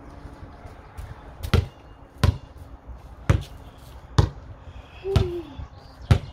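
A basketball being bounced on the ground about six times, roughly once a second.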